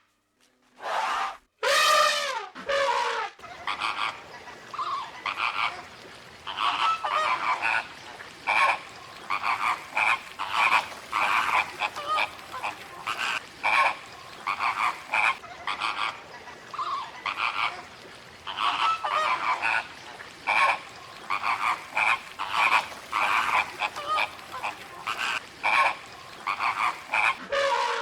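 Animal calls: a few longer pitched calls at first, then a long run of short calls repeated two or three times a second.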